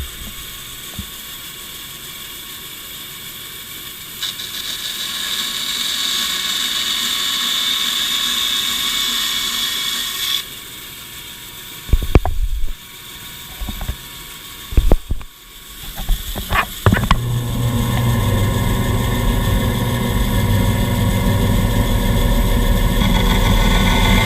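Band saw and dust collector running steadily while the band saw blade cuts through a wooden board, the cutting adding a louder high hiss for about six seconds. Around the middle come several sharp knocks, and in the last third a heavier low hum.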